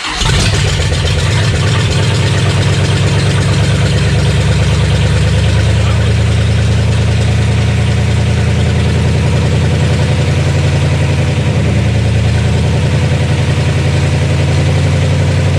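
Freshly rebuilt Mopar 318 V8, just fired up on its first run, running steadily while it is broken in.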